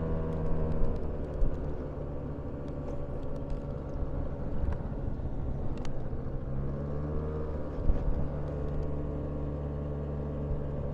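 Car engine running with road noise, heard from inside the cabin while driving slowly; the engine note shifts about two thirds of the way through.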